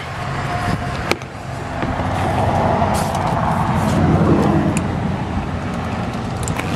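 Electric power-seat motor running, driving the leather driver's seat along its track with a steady hum that swells briefly in the middle, with a few light clicks.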